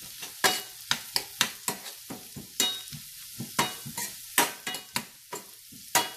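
Metal spoon scraping and knocking against a stainless steel pan while stirring chopped onions frying in oil, with irregular sharp clicks about two a second over a steady sizzle.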